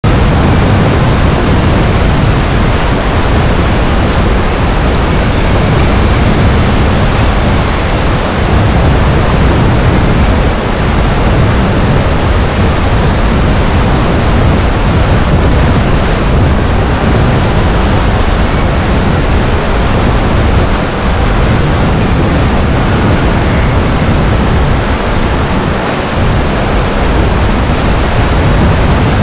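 Loud, steady rushing noise, heaviest in the low end with small dips in level: wind over the microphone on the deck of a moving cruise ship.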